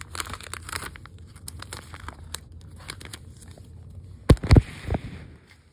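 Baseball cards being handled close to the microphone: rustling, crinkling and small clicks, then a few heavy thumps about four seconds in.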